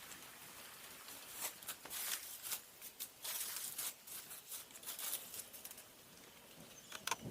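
Faint, irregular scraping and cutting strokes on cow hoof horn as the hoof is trimmed. A quick cluster of strokes comes near the end.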